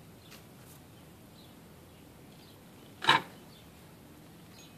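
A sharp plastic clack about three seconds in, with a couple of faint ticks early on: cats' paws batting at a hard plastic cat-and-mouse track toy.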